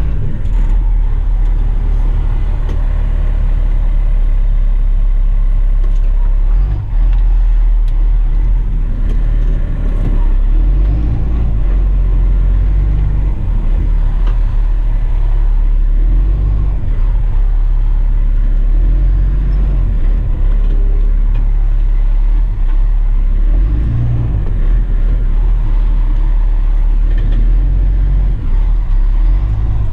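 Dump truck's diesel engine running under way, a heavy low rumble that swells and eases as the truck drives on.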